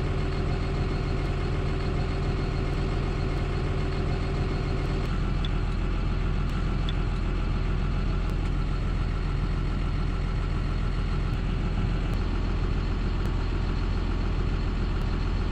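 John Deere tractor engine running steadily at idle, heard from inside the cab, while the hedge cutter's hydraulic arm is worked on its electric spool valves. About five seconds in the tone of the hum shifts slightly.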